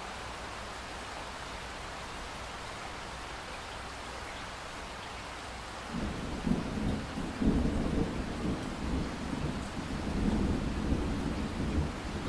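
Steady rain falling, an even hiss. About halfway through, thunder sets in, a deep rumble that swells and ebbs several times over the rain.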